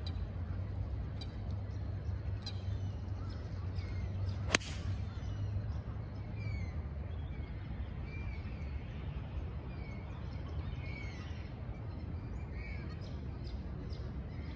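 A single sharp crack about four and a half seconds in: a TaylorMade UDI 2-iron striking a golf ball off the tee. Birds chirp and call throughout.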